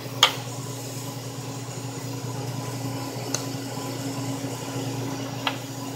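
Steady low hum of the Siemens Dimension EXL 200 chemistry analyzer's fans and motors running. A sharp click sounds just after the start, and two faint clicks come later, as the diaphragm and cuvette parts are handled.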